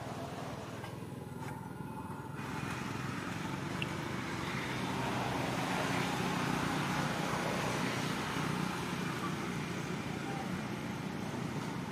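Steady background rumble of motor traffic, growing louder about two and a half seconds in.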